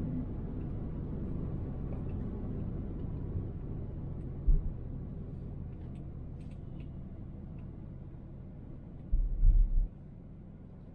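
Steady low road and engine rumble of a car being driven, with brief low thumps about four and a half seconds in and again near the end.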